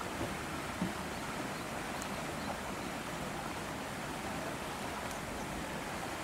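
Steady outdoor background noise: an even hiss, with a soft knock just under a second in.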